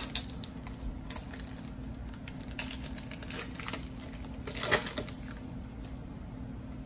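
Trading cards being handled and sorted: scattered light clicks and rustles of glossy card stock. There is a louder clatter a little under five seconds in.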